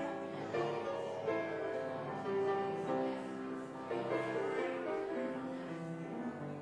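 Instrumental closing music of a church service: slow chords held on a keyboard instrument.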